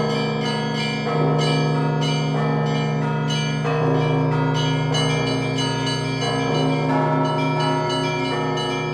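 Russian Orthodox church bells rung in a festive peal (zvon): rapid strokes on the small bells ring over the deep hum of the larger bells, which are struck again every second or two.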